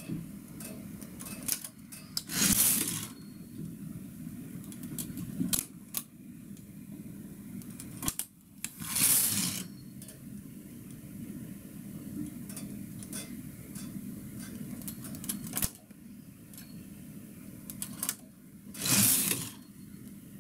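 Single-bed knitting machine: a metal hand tool clicks against the needles as stitches are moved, and three times the carriage is pushed across the needle bed, each pass a swishing rattle of about a second, a few seconds apart. A low steady hum runs underneath.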